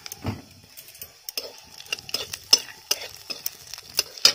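Cumin seeds sizzling in hot oil in a kadai with a bay leaf and dried red chilli, the tempering for the dish, with a metal spatula stirring and clicking against the pan. A sharp click near the end is the loudest sound.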